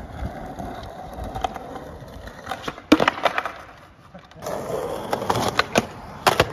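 Skateboard wheels rolling on parking-lot asphalt, then a cluster of sharp wooden board clacks and impacts about three seconds in as a trick is tried. After a short lull there is more rolling and several more clacks of the board on a concrete curb.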